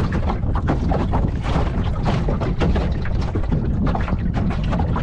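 Wind buffeting the microphone over a steady low rumble, with small waves slapping irregularly against a small boat's hull.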